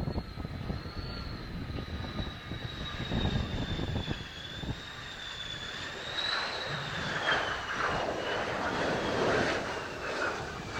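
Mitsubishi F-2 fighter's jet engine whining, a high tone that wavers and sinks in pitch toward the end, with a rush of jet noise swelling in the second half. Gusty wind buffets the microphone throughout.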